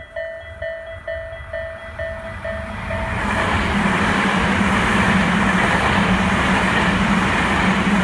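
Level crossing warning bell ringing its repeated 'kan-kan' tone, about two strikes a second. About three seconds in, an electric train starts rushing past over the crossing, and its loud running noise with a low hum drowns out the bell.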